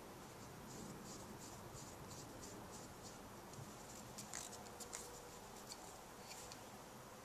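Faint scratchy clicks of a screwdriver working the brass main jet in a small motorcycle carburetor, about two a second, with a few sharper clicks of small metal parts being handled between about four and five seconds in.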